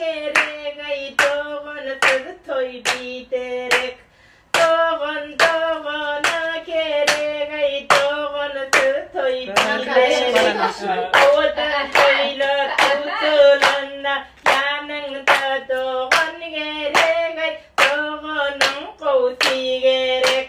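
A woman singing a song in held notes while the group claps along in a steady beat, about two claps a second. The singing and clapping break off briefly about four seconds in, then carry on.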